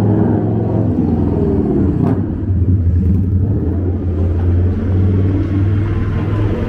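Steady low rumble of city street traffic, with a heavy truck's engine among it.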